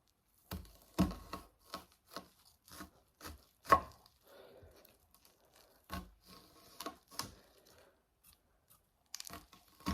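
Large kitchen knife slicing an onion on a cutting board: irregular knife strikes against the board with crisp crunching of the onion layers, the sharpest strike about halfway through.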